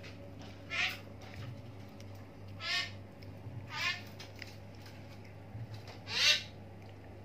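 Four short, high-pitched animal calls, each under half a second, spaced irregularly; the last, about six seconds in, is the loudest. A steady low hum runs beneath them.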